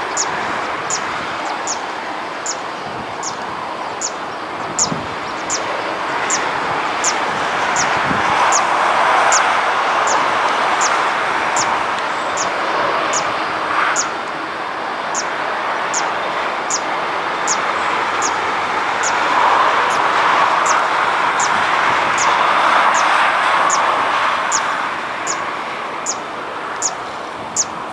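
Airbus A330-200 jet engines running at low power as the airliner taxis on the runway, a steady hiss that swells twice. A high chirp repeats evenly about every three quarters of a second over it.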